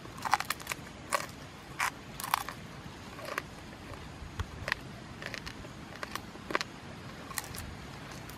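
Crunching bites and chewing of grilled toad: irregular sharp crackly crunches, thickest in the first two and a half seconds, then sparser.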